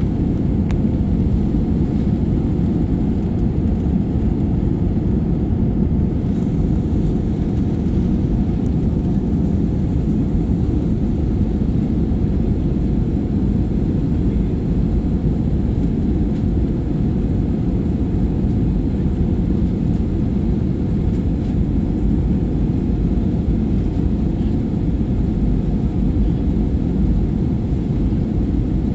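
Steady engine and airflow noise inside the cabin of a jet airliner in flight: a deep, even rumble with a faint high whine above it.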